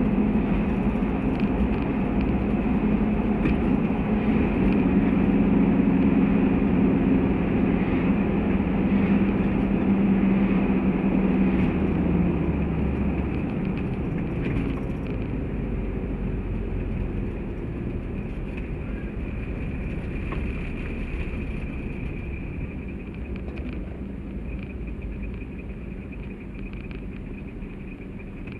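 Toyota Land Cruiser 70 heard from inside the cabin: a steady engine drone with road and tyre noise while cruising. The drone weakens and the whole sound grows steadily quieter over the second half as the vehicle slows.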